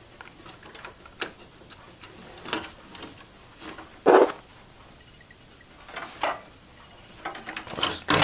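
Scattered clicks and knocks of hands working a SATA cable and drive adapter inside a desktop PC case. The loudest knock comes about four seconds in, with a quick cluster of clicks near the end.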